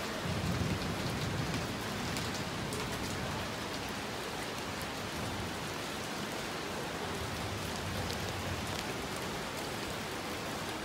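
Heavy rain falling steadily, a dense even hiss with scattered ticks of individual drops.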